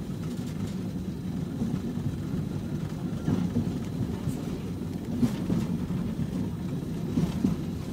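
Inside a moving tram: the steady low rumble of the car running along the rails, with a few brief knocks and rattles.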